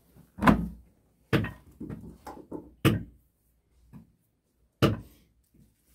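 Four dull knocks and thumps, with softer rustling and shuffling between them: a person moving about on a floor mat in a small stone room and handling things.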